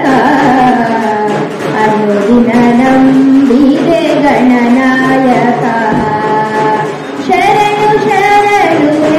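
A woman singing a slow melody into a microphone, with long held notes that slide from pitch to pitch.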